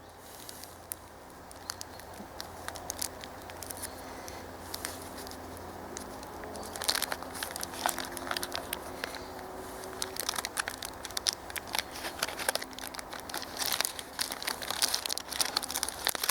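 A folded sheet of tin foil crinkling and crackling as it is unwrapped and opened out by hand. The crackling is sparse at first, gets busier about seven seconds in, and is densest near the end.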